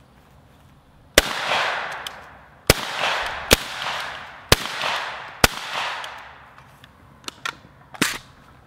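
Suppressed Molot VEPR-12 12-gauge shotgun firing five semi-automatic shots through a Silencer Co Salvo-12 shotgun silencer, unevenly spaced over about four seconds; each shot is a sharp crack followed by a tail that fades over about a second. A few lighter clicks near the end.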